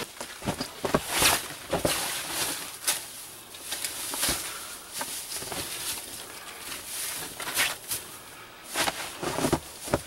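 Conifer boughs rustling and crackling as they are dropped onto a pile and pressed down by hand, in an uneven run of rustles and light cracks.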